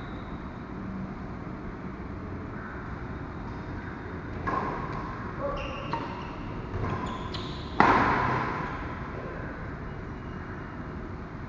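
Badminton rally: rackets strike the shuttlecock several times, with short squeaks of shoes on the court floor, then one loud hard hit about eight seconds in that echoes through the hall.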